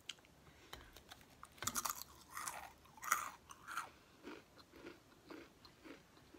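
Close-miked eating of a crunchy rolled tortilla snack (Takis): a few loud crunches in the first half, then softer chewing about twice a second.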